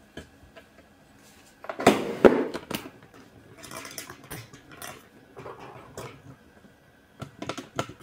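Plastic toy being handled: a burst of clicks and rustling about two seconds in, softer rustling after it, and a few sharp clicks near the end.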